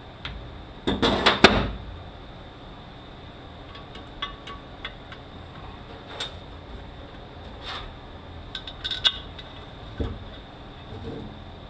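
Metal transmission parts clanking and clinking as they are handled and fitted back into the gearbox. There is a burst of clattering about a second in, then scattered light clicks and taps.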